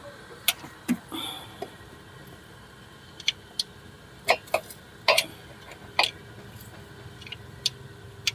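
Irregular sharp clicks and knocks, about a dozen spread over several seconds: a rubber hose and its fittings being pulled and worked free by hand in a car's engine bay.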